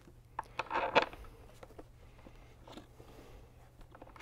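Hands fitting an M6 bolt and spacer through a metal tank bracket: scattered small clicks and a brief scrape that ends in a sharp click about a second in, then only a few faint ticks.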